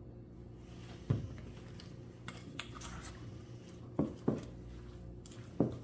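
Dishes and utensils being handled: four short knocks, with lighter clicks and scrapes between them, over a steady low hum.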